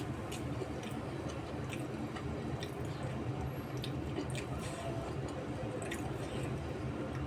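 A person chewing a mouthful of food close to the microphone, with scattered wet clicks and smacks of the mouth, over a steady low hum.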